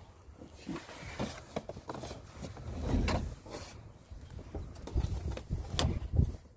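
Irregular knocks, clicks and rubbing from hands working the plastic trim of a minivan's sliding door, with a dull thump about three seconds in and a sharper knock near the end.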